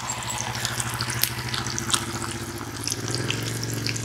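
Catfish frying in oil in a small wok over a wood fire: a steady sizzle with many scattered crackles and pops. Under it a low steady hum grows a little louder about three seconds in.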